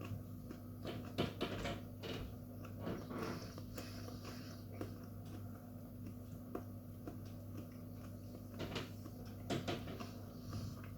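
A person chewing a chocolate Bhut Jolokia pepper pod: scattered wet mouth clicks and smacks, with a few louder ones about a second in and near the end. A steady low hum runs underneath.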